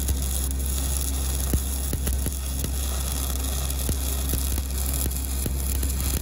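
Stick-welding arc burning a 7018 electrode: a steady crackling sizzle with a few sharp pops scattered through, over a steady low hum.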